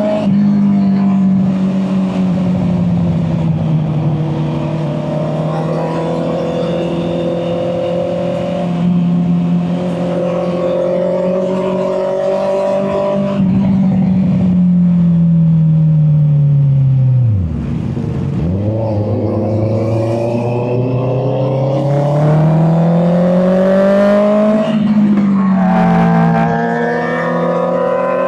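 Honda CB650R's inline-four engine under way, its pitch shifting with throttle and gears. About 17 s in the engine note falls away sharply, then climbs steadily for several seconds before dropping back at an upshift.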